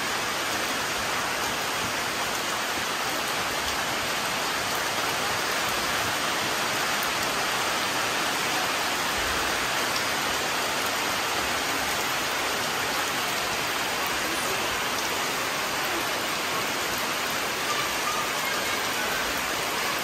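Steady rain falling on tree leaves and wet ground, an even hiss of drops.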